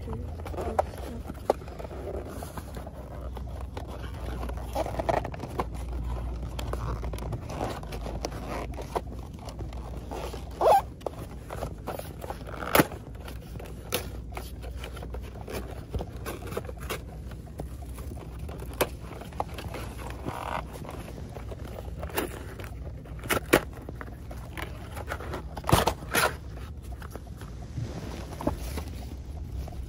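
A toy bus's cardboard-and-plastic box being opened by hand: irregular scraping, crinkling and clicking of the packaging, with a few sharper snaps. A steady low rumble of the car's cabin runs underneath.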